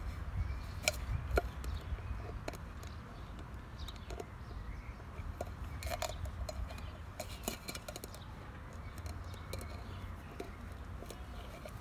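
Labrador puppy gnawing an empty tin can, its teeth clicking and scraping on the metal in scattered light clinks, a few bunched together about six seconds in, over a low rumble.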